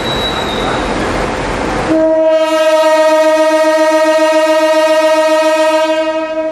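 Horn of CC 203-18, an Indonesian CC 203 diesel-electric locomotive, sounding one long steady blast that starts about two seconds in and fades near the end. Before it there is rumbling train noise.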